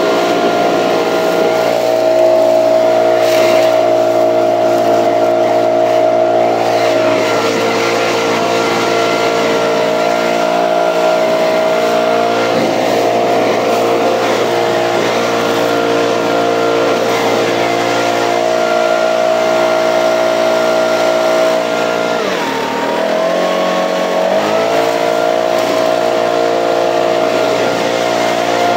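Gas backpack leaf blower running steadily at full throttle while blowing out roof gutters. About three-quarters of the way through, the engine drops off briefly and revs back up.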